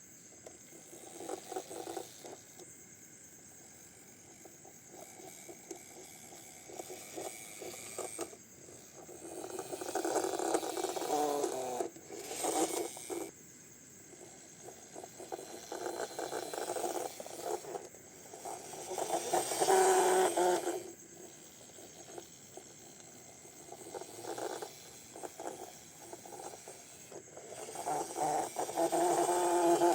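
Intermittent scraping and rattling of small hard parts being handled and worked by hand, with clusters of small clicks and louder patches every few seconds.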